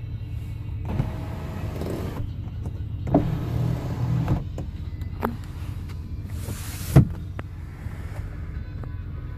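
Electric motor of a BMW 740i's power sunroof running in the cabin, with sharp mechanical clicks and knocks, the loudest about seven seconds in, over a steady low rumble of the car under way.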